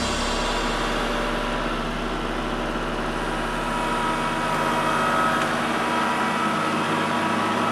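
Kubota L3301 tractor's three-cylinder diesel engine running steadily, with a steady high whine over it; it grows a little louder about halfway through.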